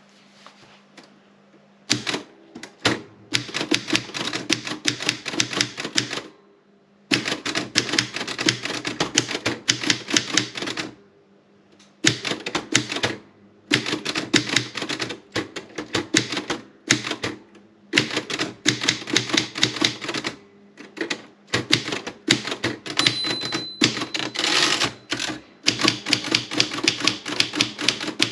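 Erika 30 manual typewriter being typed on: runs of quick keystrokes with short pauses between them, starting about two seconds in. A short high ring sounds about three-quarters of the way through.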